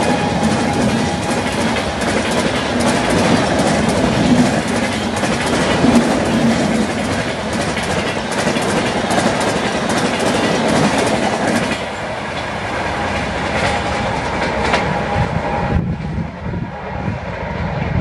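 Blue LHB passenger coaches of an express train passing close at speed: a steady rush of steel wheels on rail with rapid clickety-clack over the rail joints, easing slightly about two-thirds of the way through. Near the end it drops abruptly to a quieter, more distant train sound.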